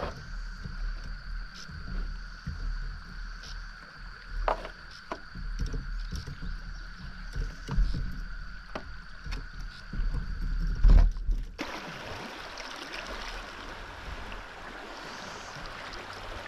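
Kayak on a fast river: a low rumble with scattered knocks under a steady high whine. About twelve seconds in this gives way abruptly to the even rush of flowing river water.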